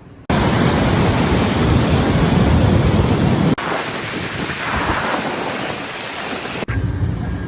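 Storm wind and heavy rain rushing loudly over the microphone, in two clips joined by a sudden cut about three and a half seconds in; near the end a quieter clip of wind noise follows.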